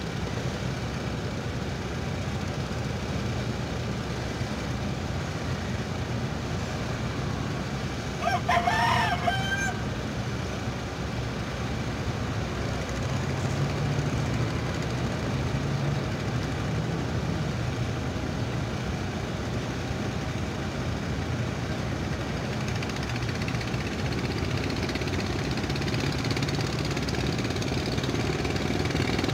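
Steady low drone of a cargo ship's engine underway. A rooster crows once over it about eight seconds in.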